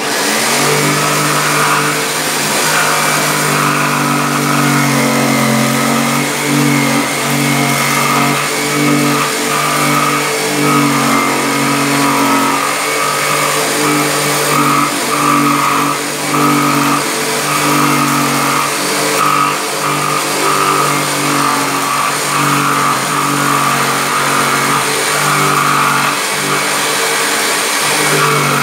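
Black+Decker corded jigsaw starting up and sawing through the top panel of a speaker cabinet, cutting a handle opening from the second side to meet the first cut. The motor starts suddenly and its pitch wavers up and down as it cuts.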